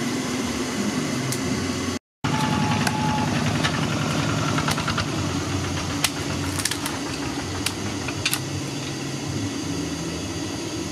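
A steady engine-like hum, cut off for an instant about two seconds in, with a few sharp knocks in the second half as an axe chops into a wooden stump.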